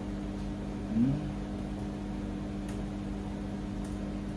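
Steady mechanical hum with two steady tones, a brief murmur from a man about a second in, and a few faint laptop key clicks.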